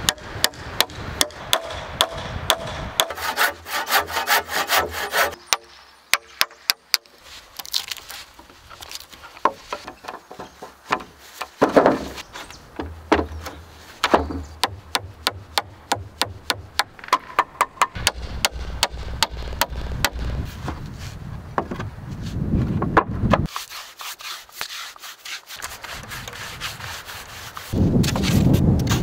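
Hammer blows on timber, driving nails and a steel timber staple into wooden beams, in runs of quick, sharp strikes with wood-working noise between them.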